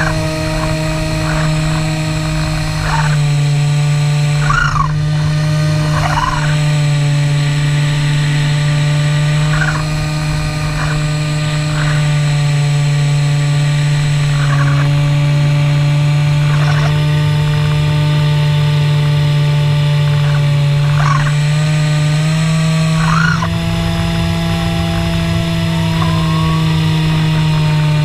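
Electric motor and propeller of a Skywalker 1900mm FPV plane, a steady, even-pitched drone at cruise throttle. The pitch steps up slightly about three-quarters of the way through.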